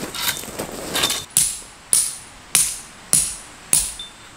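A metal tent peg being hammered into gravel ground: five sharp metallic strikes, a little over half a second apart, each ringing briefly.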